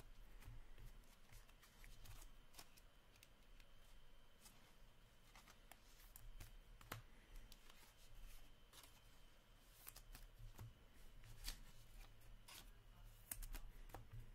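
Hockey trading cards being handled and flipped through by hand: faint, scattered clicks and rustles of card stock, over a low steady hum.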